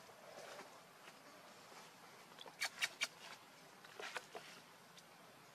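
Three sharp clicks in quick succession about two and a half seconds in, then a few softer clicks about a second later, over a faint quiet background.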